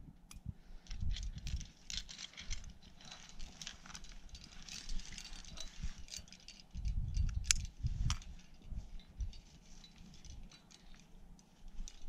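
Climbing gear being handled: metal carabiners clicking and jangling, with the rustle of a nylon sling and rope as a sling is set over a granite knob and the rope is clipped in. Sharper clicks and some dull low thumps come about seven to eight seconds in.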